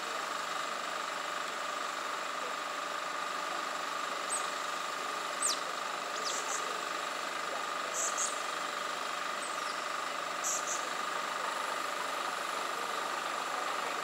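Steady outdoor background hiss with a constant high drone, broken by several short, high chirps, some falling sharply in pitch, scattered through the first two-thirds.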